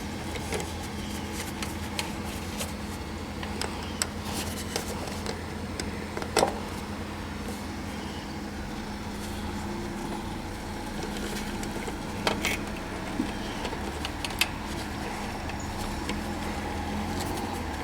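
Scattered light clicks and metallic clinks of spade connectors and tools as wires are pushed onto the terminals of a new A/C capacitor, over a steady low machinery hum.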